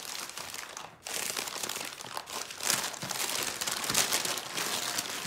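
Crumpled paper wrapping crinkling and rustling as it is pulled open by hand, with a brief lull about a second in.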